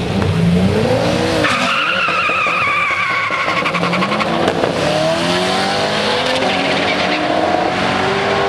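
Drag-racing car launching down the strip: the engine revs up, the tyres squeal for about two seconds, then the engine pulls hard, its pitch climbing in several steps through the gear changes as the car runs away from the start.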